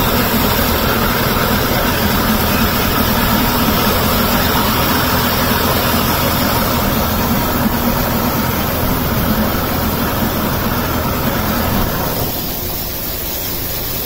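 Mercury 25 outboard motor running steadily in a test drum of water, with water splashing into the drum; the cooling-water stream jetting from the engine shows the freshly changed water pump impeller is pumping. Near the end the sound drops and becomes quieter.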